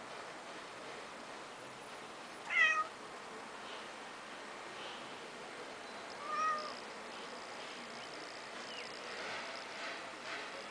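A domestic cat meows twice in short, falling calls, the first about two and a half seconds in and a softer one about four seconds later.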